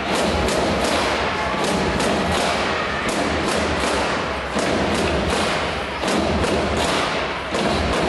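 Ice hockey arena din: steady crowd noise with repeated sharp thumps and bangs, about two or three a second, echoing in the rink.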